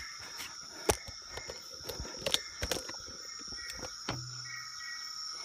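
A steady, high-pitched chorus of evening forest insects, with a few sharp clicks and knocks from movement close by, the loudest about a second in and just past two seconds, and a dull thump a little after four seconds.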